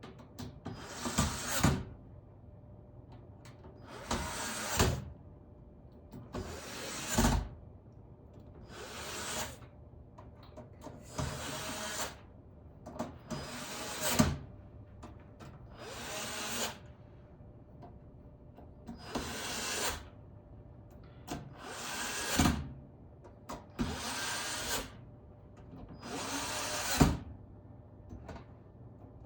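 Electric screwdriver running in short runs, about one every two seconds, each ending in a sharper, louder peak.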